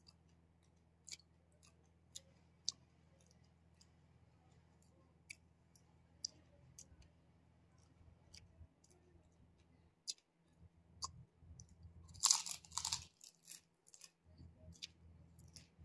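A person chewing and crunching fuchka (panipuri), the crisp hollow puri shells cracking in the mouth as faint scattered crunches, with a louder stretch of crunching about twelve seconds in.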